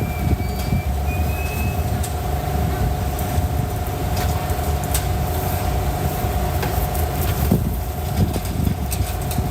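Steady low machine-like rumble with a constant hum and a few scattered light clicks.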